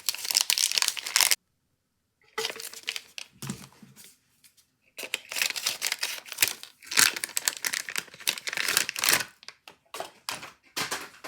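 Plastic packaging bag being torn open and crinkled, in several bursts of crackling with short pauses between.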